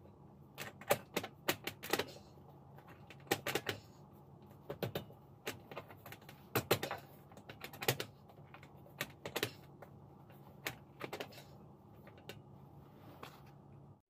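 Irregular clicks and light knocks of a perforated ceiling air-conditioning diffuser being handled and worked loose from its ceiling panel, some in quick clusters, over a steady low hum.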